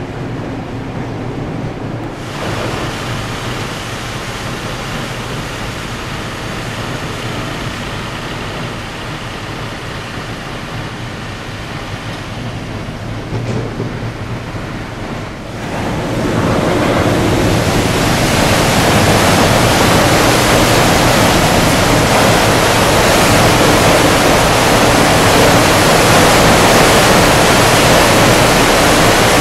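A steady low hum of the Queen of Oak Bay's machinery with faint steady tones. About halfway through, a loud, even rushing of churned water rises and then holds: propeller wash thrashing the water as the ferry pulls out of its berth.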